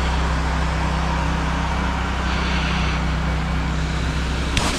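Engine of a trailer-mounted pressure washer running steadily, with a sharp click near the end.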